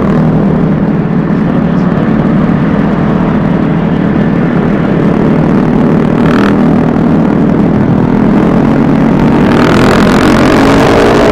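Vespa S 125 scooter engine running at road speed under heavy wind noise on the microphone, picking up revs near the end.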